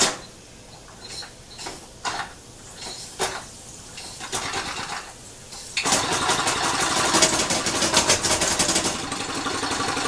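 Small single-acting steam engine, converted from a weed-eater engine and fed from a pressure-canner boiler, being started by hand: scattered clicks and knocks as the flywheel is jerked, then about six seconds in it catches and runs with a rapid, steady beat.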